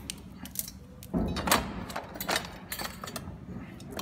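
Hands handling a massage chair's plastic roller assembly and wiring: a run of light plastic knocks and clicks with a louder scraping shuffle just over a second in.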